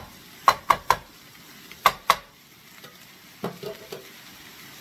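Diced bell peppers, onion and celery frying with browning turkey sausage in a skillet of hot oil, a steady sizzle, while a spoon stirs and knocks against the pan: five sharp clacks in the first two seconds or so, then quieter stirring.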